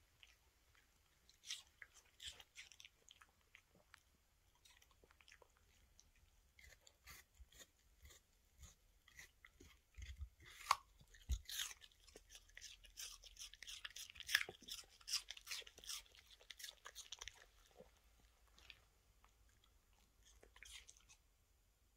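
Toy terrier chewing a piece of raw apple: irregular crisp crunches and bites, sparse at first, coming thick and fast through the middle, then thinning out near the end.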